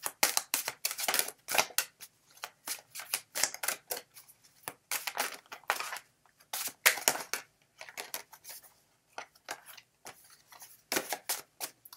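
A deck of stiff tarot cards shuffled overhand, hand to hand: a quick, irregular run of card snaps and slaps, thinning for a moment about nine seconds in.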